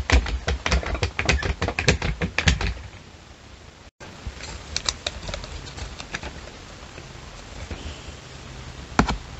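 Laser-cut wooden walking Moai toy clattering down a board ramp under its own weight, a quick run of light wooden knocks for about three seconds. After a short break come a few scattered wooden clicks as the toy is handled, and a sharp double knock near the end.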